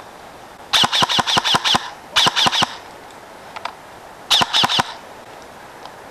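Airsoft electric gun (AEG) firing three quick strings of shots, about eight, then four or five, then four, each shot a sharp snap.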